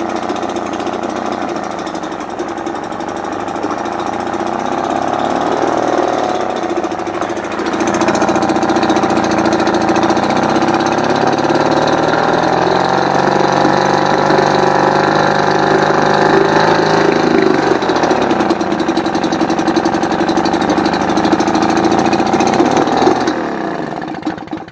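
1976 British Seagull Silver Century outboard, a single-cylinder two-stroke, running in the water. Its engine speed picks up about eight seconds in, climbs slowly for several seconds, drops back, and then runs steadily until the sound cuts off at the very end.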